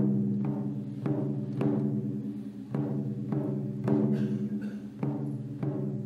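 Taiko drums struck in a slow, steady pulse, a little under two strokes a second, each stroke ringing on over a sustained low drone. A violin joins in softly about two-thirds of the way through.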